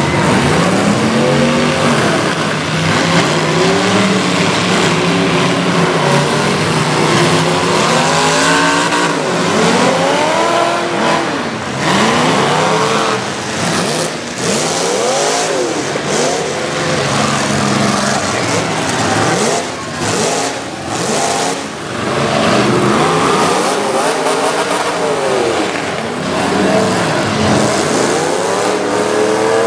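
Several full-size demolition derby cars revving their engines hard, up and down over one another, with a series of crashes through the middle stretch as they ram each other.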